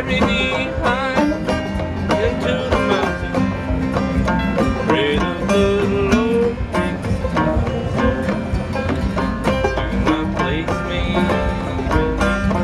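Instrumental string-band music: a banjo picking steady notes under a melody line that slides and wavers in pitch.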